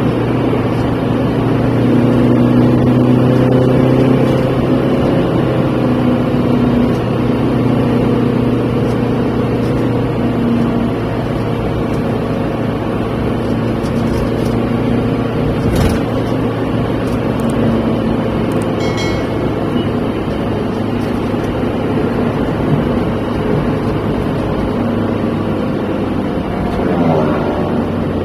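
Engine and road noise of a car driving on a highway, heard inside the cabin: a steady drone with one sharp knock about halfway through and a short rising tone near the end.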